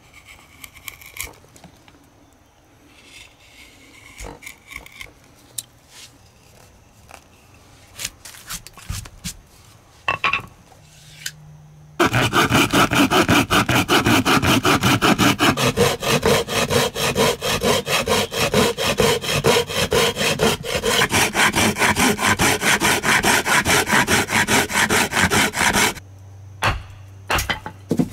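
Sparse knife cuts and scrapes in wood, then a loud, fast, even run of hand-saw strokes through a wooden spoon blank that starts abruptly a little under halfway in and stops abruptly near the end.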